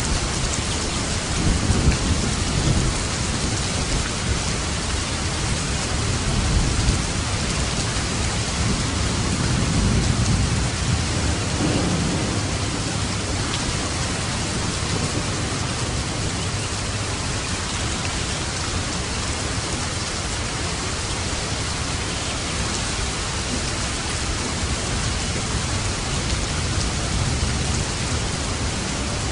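Steady heavy rain, a dense even hiss, with a low rumble of thunder swelling a few times in the first half.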